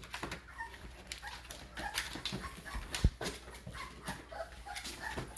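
American bully puppies moving about and whimpering softly, with many small clicks and scuffles and a single low thump about three seconds in.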